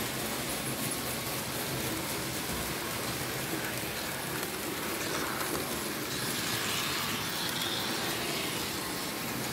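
Märklin H0 model train, a V 216 diesel locomotive pulling passenger coaches, running steadily along the layout's track: a continuous whirring rumble of the model's motor and wheels on the rails.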